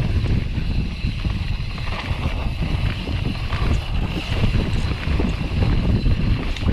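Wind buffeting the microphone and the rumble of mountain-bike tyres rolling over a dirt trail while riding, an uneven gusting noise.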